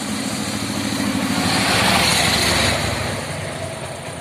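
Bajaj Discover 135's single-cylinder four-stroke engine running, its timing-chain adjuster freshly tightened and the engine sounding clean. It is revved briefly around the middle, then settles back.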